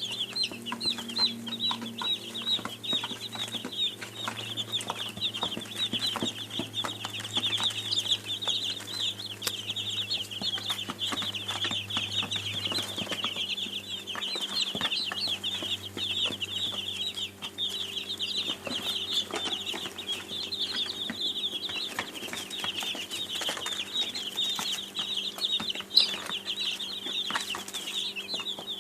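A flock of young chicks peeping without pause, many short high calls overlapping, over a low steady hum.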